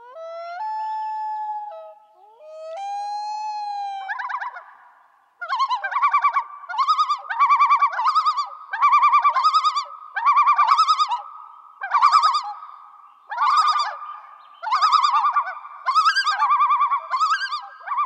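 An animal calling: two long, steady pitched calls, each rising slightly in pitch, then after a short gap a run of quick trilling calls repeated about once a second.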